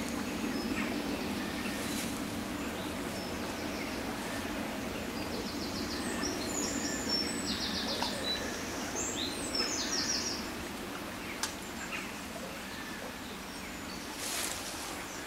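Steady rush of a small river's flowing water, with a songbird singing a few short trilled phrases midway through.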